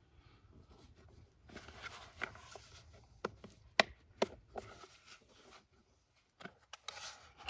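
A new generator air filter assembly box and its filter being handled: scattered clicks and knocks with rustling, one sharper click near the middle.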